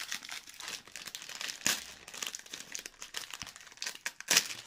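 Small plastic snack packet being crinkled and pulled open by hand: a steady run of crackling, with two louder sharp crackles, one about two seconds in and one near the end.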